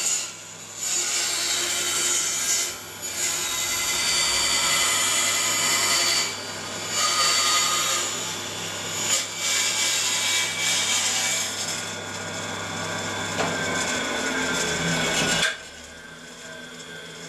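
Band saw cutting a circle out of a thick wood blank turned on a pivot jig, a steady cutting noise that eases off briefly three times as the blank is turned. About 15 seconds in the cutting stops suddenly, leaving a quieter whine that falls in pitch.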